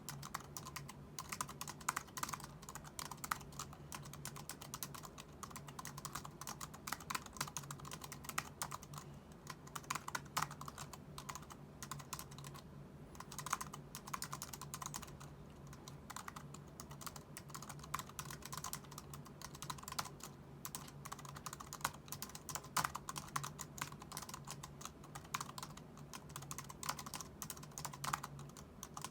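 Typing on an Anker Ultra Slim Bluetooth keyboard: a fast, uneven stream of light key clicks with occasional louder strokes and short pauses, kept up throughout.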